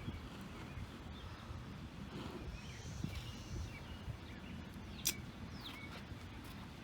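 Outdoor ambience with a steady low rumble and wild birds giving several short chirps. A single sharp snap sounds about five seconds in.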